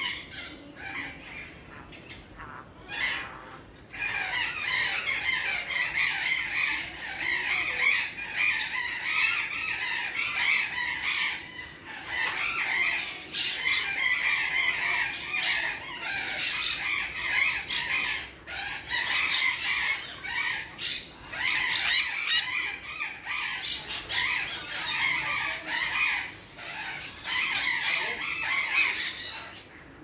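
A flock of parrots in an aviary screeching and squawking, many harsh calls overlapping. A few scattered calls at first, then near-constant screeching from about four seconds in.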